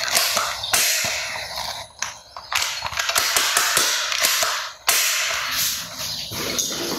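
Plastic toys being handled: irregular rustling with many sharp clicks and clatters, in uneven bursts with short pauses.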